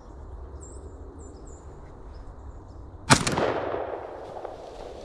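A single shotgun shot about three seconds in: a sharp blast followed by a rolling echo that fades over about a second. Small birds chirp faintly before it.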